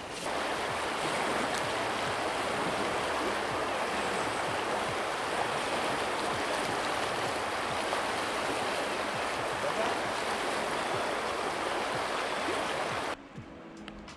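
Steady rushing of flowing river water. It cuts off abruptly near the end, leaving a much quieter background.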